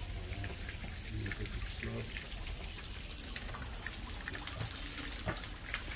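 Fountain water trickling and splashing steadily into a garden pond, with faint voices in the background.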